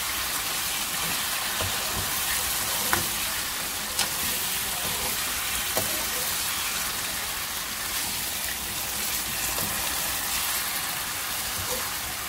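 Chicken pieces in masala frying with a steady sizzle in an iron kadai while a metal slotted spatula stirs them. A few sharp clicks come from the spatula knocking and scraping the pan.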